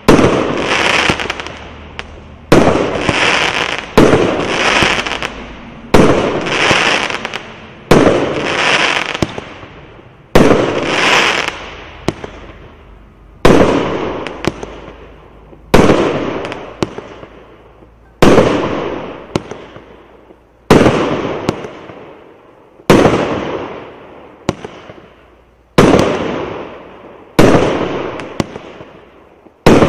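A 1.2-inch fireworks cake firing single shots roughly every two seconds. Each shot is a sharp bang that fades out over a second or two.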